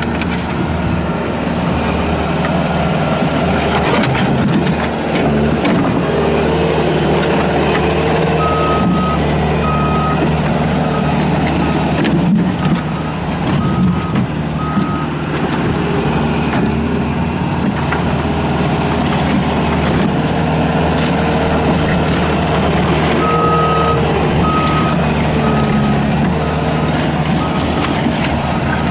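Skid steer loader's diesel engine running steadily under throttle, with its backup alarm beeping in two runs of evenly spaced beeps as the machine reverses.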